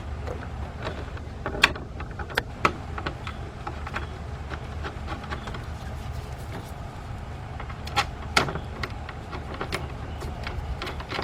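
Scattered metal clicks and taps of 10 mm bolts being started by hand into a radiator fan assembly's mounts, with a few sharper clicks near the start and again about eight seconds in.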